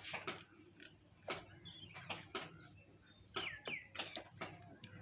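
Faint, irregular small metallic clicks as a thin washer and a lock ring are worked by hand onto a motorcycle gearbox input shaft.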